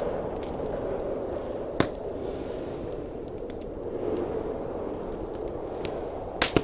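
Wood fire crackling in a fireplace: scattered small ticks and two sharp pops, one about two seconds in and a double pop near the end, over a steady low rushing noise.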